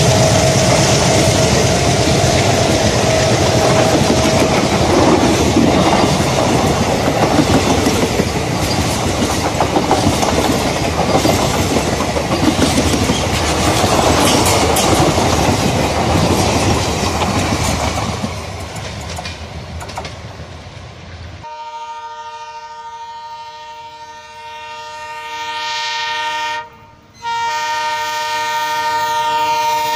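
Passenger coaches of an express train rolling past close by, wheels clattering over the rail joints, then fading. After a cut, an approaching WDM-3D diesel locomotive sounds its horn, a chord of steady tones growing louder and held with one brief break.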